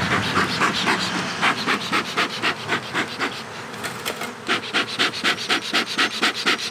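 Bee smoker's bellows pumped in quick, even puffs, about five a second, with a short pause midway.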